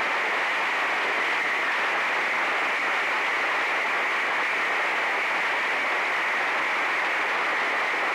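Audience applauding in a dense, steady ovation.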